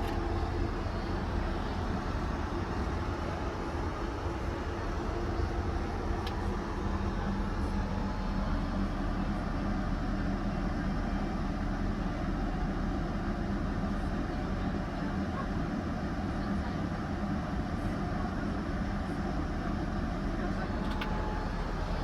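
Steady low cabin roar inside a Boeing 787-9 airliner, the engines and airflow droning evenly.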